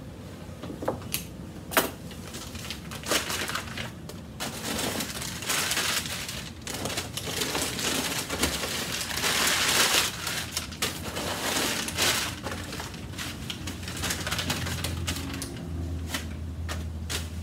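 Crumpled newspaper packing rustling and crinkling as it is pulled out of a cardboard box and handled, with frequent sharp crackles, busiest in the middle.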